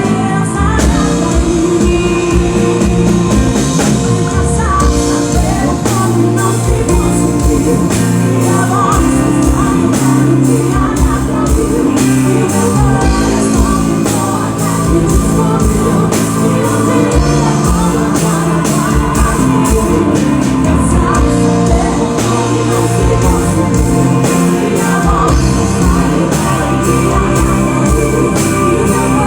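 Band music with a steady drum beat, held chords and a singing voice.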